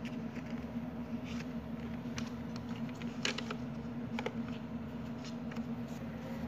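Light, scattered plastic clicks and scrapes as foam darts are pushed one at a time into the plastic drum of a toy dart blaster, over a steady low hum.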